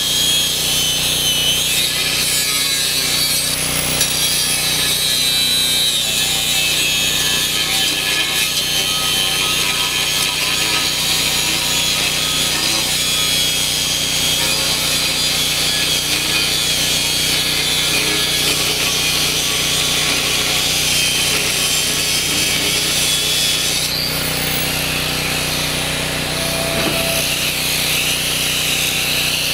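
DeWalt 7-amp angle grinder with a fresh blade cutting through the steel shell of a sealed AC compressor, a steady grinding whine. About five seconds before the end the blade comes out of the cut and the grinder runs on free, a little quieter.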